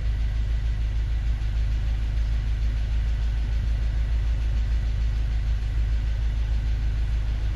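2003 Acura RSX base model's 2.0-litre four-cylinder engine idling with a low, steady drone.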